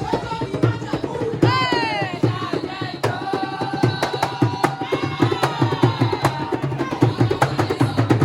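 Music with busy, fast drumming throughout and pitched parts above it, including a run of notes sliding downward about one and a half seconds in.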